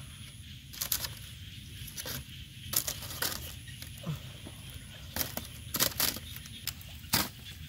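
Irregular sharp clicks and crackles at a wire grill over glowing charcoal as grilled frogs are handled and lifted off the grate, about eight in all. A faint high tone repeats in short dashes underneath.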